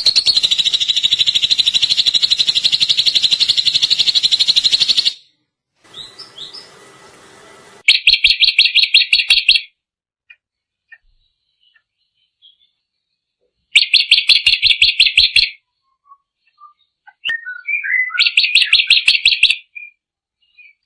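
Drongo (srigunting) singing: fast, rattling trills. A long trill cuts off abruptly about five seconds in, then come three shorter bursts of about two seconds each, with a few faint chips in the pauses between them.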